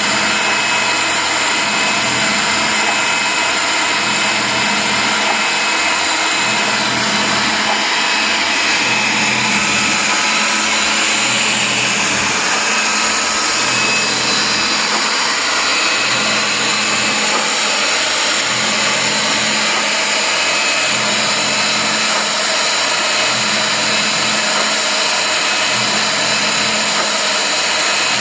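Electric pipe threader running steadily, turning an air compressor tank with gravel, TSP and water tumbling inside, with a regular low throb.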